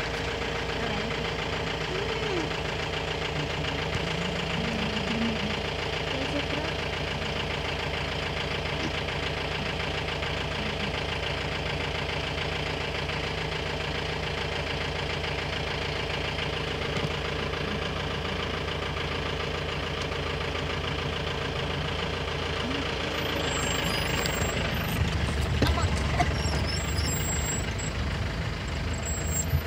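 A vehicle engine idling steadily, growing louder with a deeper rumble about three-quarters of the way through.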